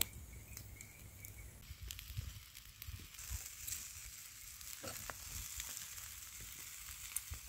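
Faint crackling of a wood fire: scattered small pops over a steady high hiss.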